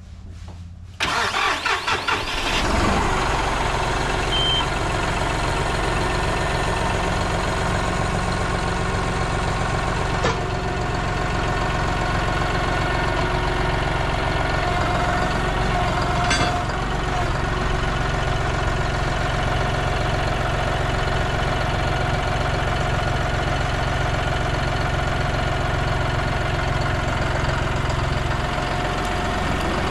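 John Deere 5045E tractor's three-cylinder diesel engine starting about a second in, uneven for a moment as it catches, then running steadily.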